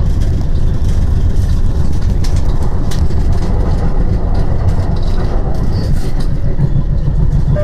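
Tyne and Wear Metro train running along the track, heard from on board: a steady low rumble with scattered clicks from the wheels on the rails.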